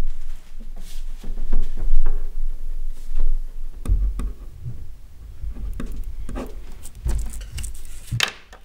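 Handwriting at a wooden desk: a pen scratching on paper, with irregular knocks and low bumps against the desktop and a short paper rustle near the end as the sheet is handled.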